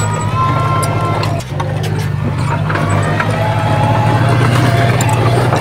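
Heavy earthmoving machine's diesel engine running steadily under work, with a fainter whining tone above the engine's low drone and a brief dip in loudness about one and a half seconds in.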